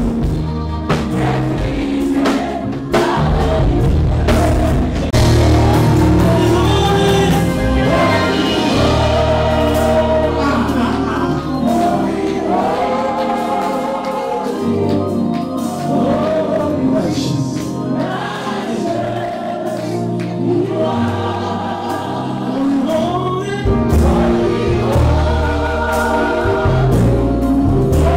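Live gospel worship music: a church praise team of several singers singing together in harmony, holding long notes, over keyboard, bass and drums.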